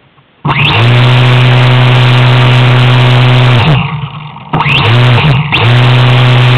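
RC swamp buggy's 3900 kv brushless inrunner motor driving a 9x9 propeller through a 3.6:1 gearbox, throttled up suddenly about half a second in to a loud steady buzz. It drops off just past halfway, comes back up, and dips once more briefly before holding steady again.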